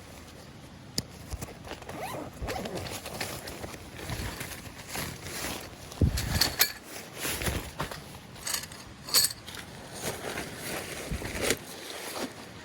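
Camping gear being handled: irregular rustling and scuffing of fabric and gear, with footsteps and a few sharper knocks, the loudest about six seconds in.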